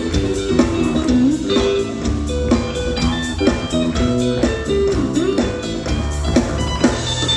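Live band playing an instrumental passage: an electric guitar riff with bent notes over bass guitar and a drum kit keeping a steady beat.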